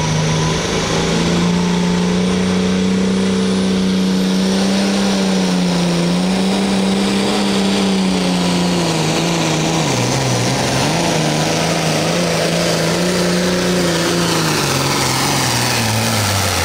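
John Deere 4555 pulling tractor's diesel engine at full throttle hauling the weight-transfer sled, loud and steady. Its pitch wavers from about two-thirds of the way through and sinks toward the end as the sled's load drags the revs down.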